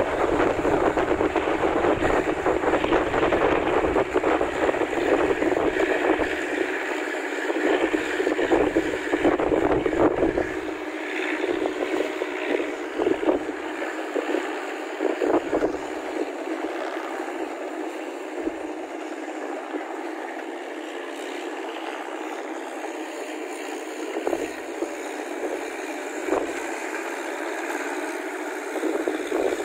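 Massey Ferguson tractor engine running steadily as the tractor works a flooded rice paddy with a rotary tiller, with gusts of wind on the microphone coming and going. The sound eases somewhat in the second half.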